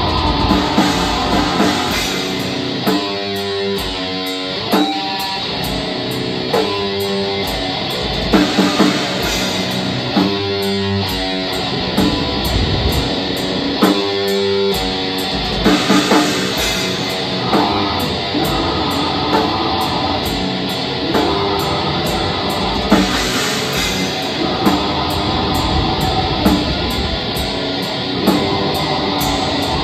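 Black metal band playing live: distorted electric guitars over a drum kit, with melodic guitar lines rising out of the wall of sound now and then.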